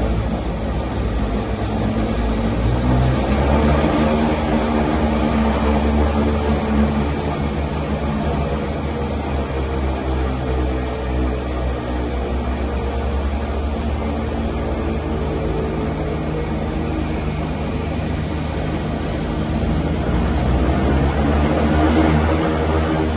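The twin Pratt & Whitney PT6A turboprop engines and propellers of a DHC-6-300 Twin Otter seaplane running, heard from inside the cockpit: a steady, loud drone with a high whine that slowly rises and falls in pitch.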